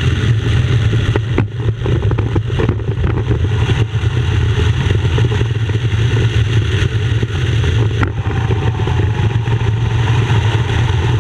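Just Aircraft SuperSTOL bush plane's engine and propeller running steadily at power, a loud, constant drone.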